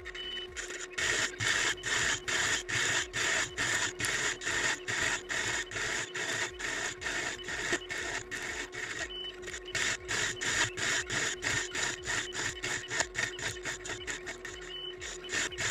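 Homemade small CNC lathe cutting a metal workpiece, its motors and cutting noise sped up into a choppy machine whir that pulses about four to five times a second over a steady hum.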